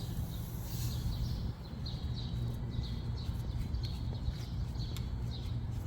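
A bird chirping over and over, short high chirps about three a second, over a steady low hum.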